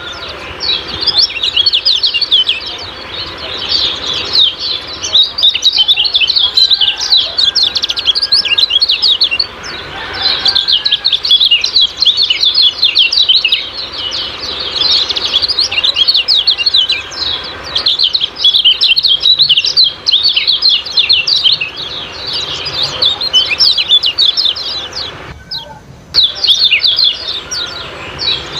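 Kecial kuning songbird chattering its 'ciak-ciak' song: a rapid, nearly continuous stream of short, high chirps. It breaks off for a moment near the end, then starts again.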